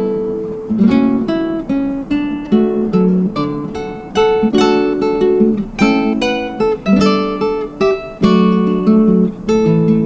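Background music: acoustic guitar playing a run of plucked notes and strummed chords.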